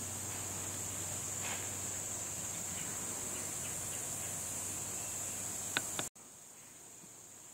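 A steady, high-pitched chorus of insects, with two short sharp clicks just before six seconds in, after which the whole sound drops suddenly to a quieter level.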